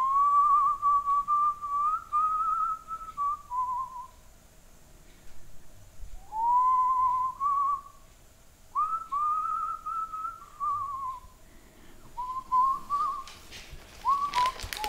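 A person whistling a tune in several wavering phrases with short breaks between them. A paper bag rustles near the end.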